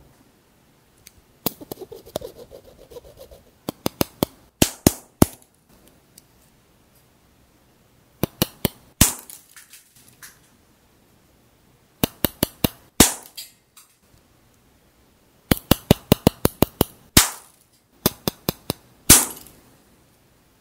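Hard, glassy sugar coating of apple tanghulu (candied mini apples) being tapped, giving quick clusters of sharp clicks, several strokes at a time with short pauses between. The crisp click shows the syrup has set into a hard candy shell rather than staying sticky.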